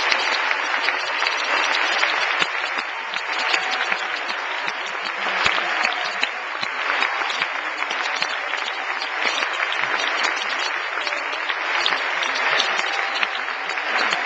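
Large concert audience applauding, a dense and steady mass of clapping.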